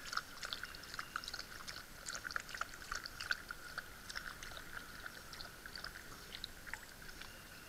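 Faint, irregular small clicks and crackles aboard a canoe gliding through still water, over a faint steady hum.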